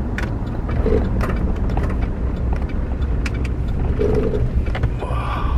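GMC pickup truck's engine running on the move, heard from inside the cab as a steady low rumble, with the rush of air drawn through its aftermarket cold air intake. Light clicks and rattles come through now and then.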